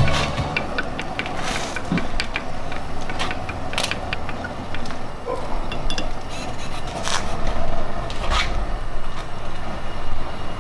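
Small containers and a pipette handled on a table: scattered light clicks and taps over a steady low background rumble.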